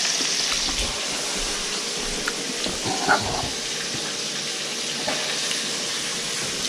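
Small bream and crappie frying in a pan: a steady sizzle, with a few faint knocks.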